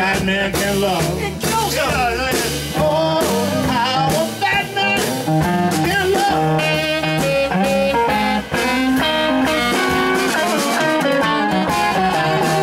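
Live blues band playing an instrumental passage: tenor saxophone and electric guitar over upright bass and drums, with bending and stepping melody notes.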